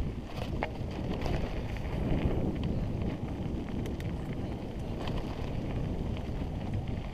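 Rushing wind noise on a helmet-mounted action camera's microphone while riding a mountain bike down a dirt singletrack, a steady low rumble with scattered light clicks and rattles from the bike over the trail.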